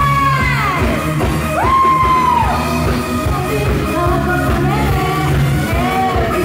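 Live band playing upbeat rock-pop music with a woman singing into a microphone: a long held high note slides down, then another held note swoops up and falls away, over a steady beat.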